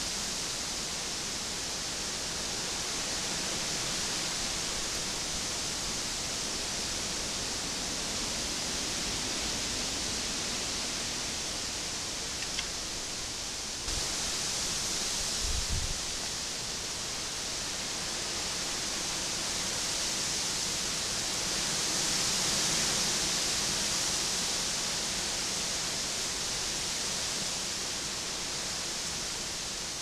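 Steady hiss from a trail camera's microphone with faint outdoor ambience, and a few brief low thumps about halfway through.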